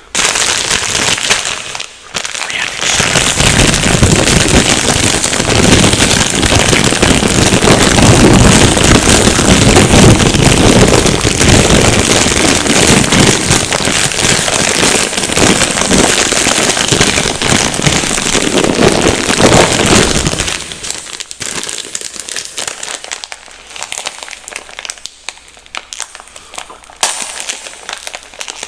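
Microphone being scratched up close: loud, dense scratchy crackling for about twenty seconds, then dropping to softer, scattered crackles.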